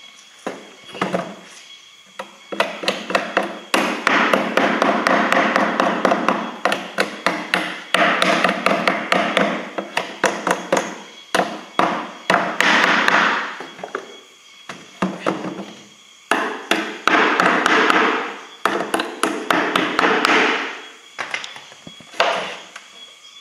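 Claw hammer tapping rapidly against the wooden panels inside a beehive box, in runs of quick strikes a few seconds long broken by short pauses.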